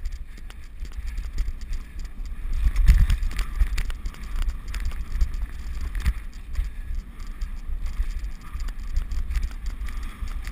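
Movement noise on a body-worn action camera travelling fast over a grass path: a steady low rumble with irregular knocks, the loudest bunch about three seconds in.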